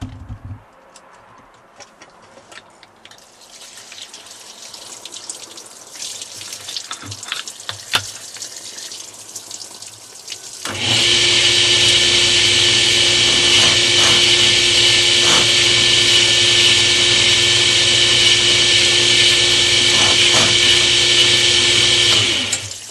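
Water trickling, then about halfway through a drill press motor starts and runs steadily with a 3/8 inch glass bit tapering holes in a wet stone tile, with a few brief scrapes, before shutting off near the end.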